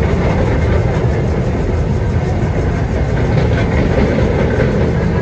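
New York City subway cars rolling past close by: steady, loud wheel-on-rail noise with light clicking over the rail joints.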